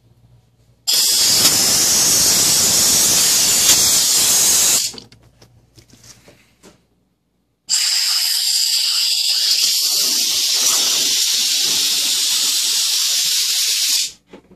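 Compressed air hissing steadily out of a nozzle in two long blasts, the first about four seconds and the second about six, with a short pause between them.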